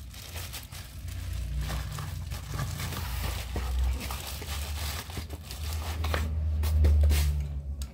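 Rustling, crinkling handling noise with many scattered light clicks, over a steady low hum that grows louder near the end.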